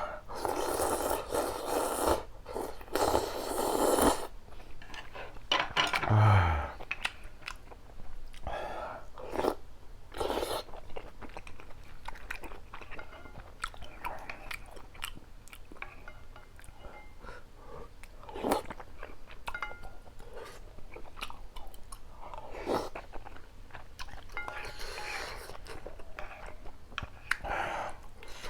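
Close-miked eating of spicy ramyun with rice cakes and dumplings: chewing, crunching and wet mouth sounds. The first four seconds are a run of loud noisy bursts, and the rest is quieter chewing broken by sharp clicks.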